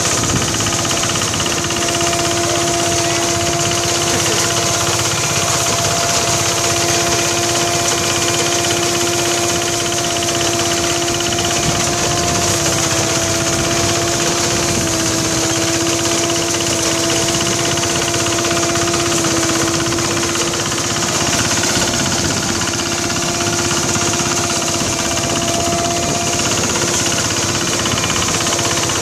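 Mini rice threshing machine running steadily: a constant mechanical drone with a steady hum, its pitch shifting slightly a little before halfway through.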